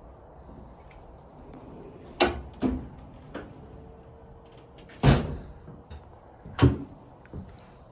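Metal clunks and knocks from handling a Snap-on tool box and its tools: about five sharp knocks, the loudest two about halfway through and a little later.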